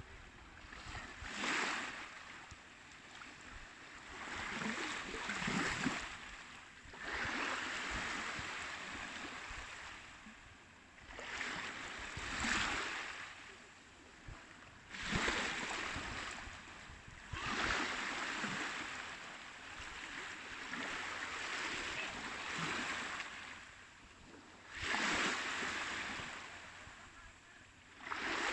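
Sea waves breaking and washing in, a hiss that swells and falls back every few seconds at uneven intervals.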